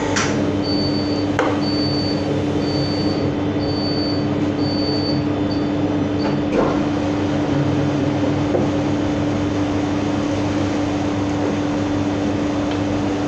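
Gelato batch freezer running with a steady hum while black orange sorbet is extracted from its front door. A short high electronic beep repeats about once a second and stops about six seconds in.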